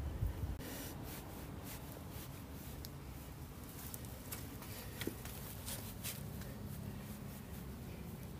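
Soft scratchy rustling of a hand stroking a tabby cat's fur, in short irregular strokes, with a dull bump right at the start.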